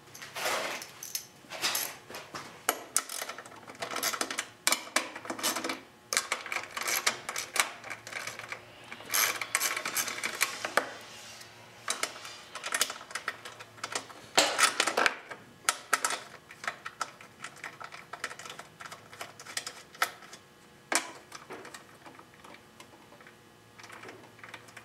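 Socket ratchet clicking in fast runs with short pauses, loosening the 5/16-inch bolts that hold a lawn mower engine's gas tank.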